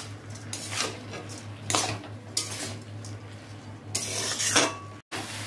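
Metal spatula scraping and stirring rice around a metal wok as the rice fries, in several separate scraping strokes over a steady low hum. The sound cuts out for an instant near the end.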